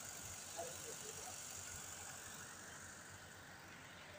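Faint outdoor crowd background: a steady hiss with a few brief distant voices about half a second to a second and a half in, and wind rumbling on the microphone.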